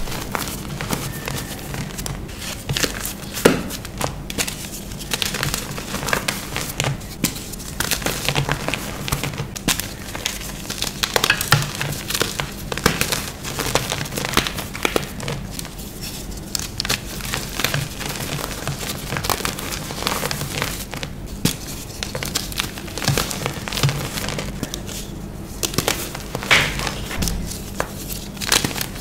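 Hands crushing and crumbling soft, dusty blocks of gym chalk and Holi colour powder. A dense, irregular stream of crackling and crunching comes as the pieces break down into loose powder.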